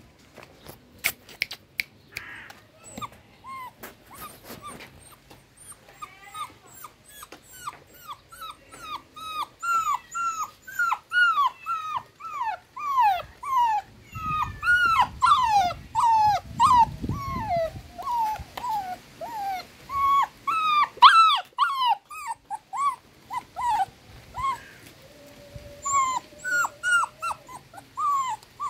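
Young puppy whimpering in a long run of short, high cries, each one falling in pitch, about two a second. The cries thin out near the end. They are the distress cries of a frightened puppy.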